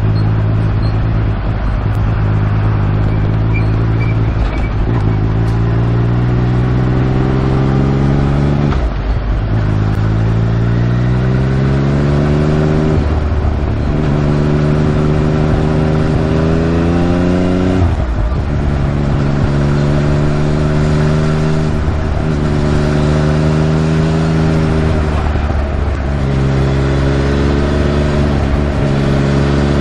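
Yamaha MT-09 inline-three motorcycle engine pulling under load, its pitch climbing steadily and dropping sharply several times as it shifts up. A hissing 'shaa' runs along with it. This is the abnormal noise the owner is chasing, and it seems slightly better to him now that the stock muffler is back on.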